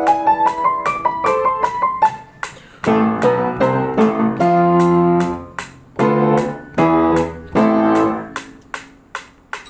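Upright piano playing the closing bars of an étude: a quick rising run of notes, then loud chords separated by short breaks, the last chord fading away about eight seconds in. A steady beat of sharp ticks, about two to three a second, runs alongside and goes on after the final chord.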